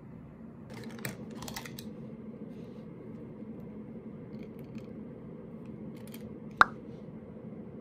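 Plastic pens being handled on a desk: light rustling and small clicks, with one sharp plastic click a little before the end, over a steady low room hum.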